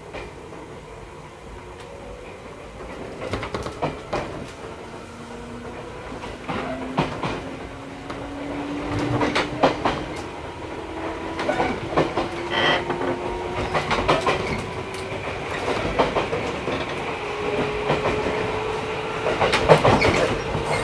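211 series electric train's DC traction motors whining as it accelerates, the tone slowly climbing in pitch as speed builds. The wheels clack over rail joints, and the running noise grows louder, heard from inside the motor car.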